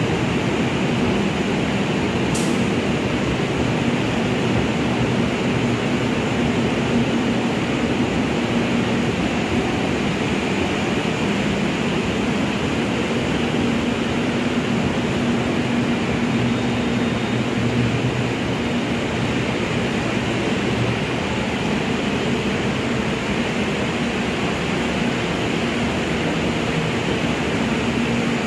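Indian Railways passenger coaches rolling slowly past a platform: a steady rumble of wheels on rail with a low hum underneath, and one sharp click about two seconds in.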